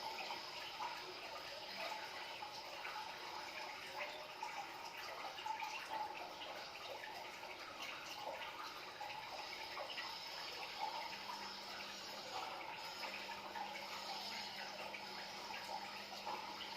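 Water flowing and trickling steadily, a continuous light rushing with small flickers.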